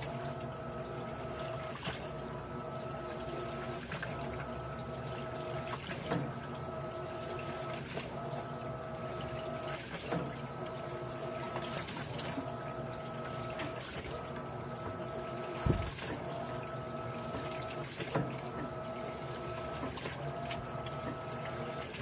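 Electrolux 17 kg top-load washing machine filling with water while agitating a full load: water pouring and swishing over a steady machine hum, with a short click about every two seconds and one low thump past the middle.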